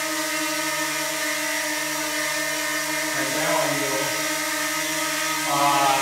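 DJI Mini 2 quadcopter hovering, its propellers giving a steady whine of several tones. The pitch wavers briefly about three seconds in and again near the end as it adjusts its flight.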